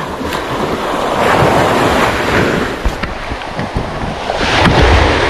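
Small waves washing up a sand-and-pebble shore, with wind buffeting the microphone; the wash swells louder near the end.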